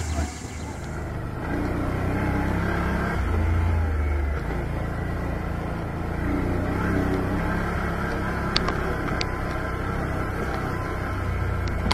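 Quad (ATV) engine running as the quad is ridden along a dirt track, its low note changing with the throttle.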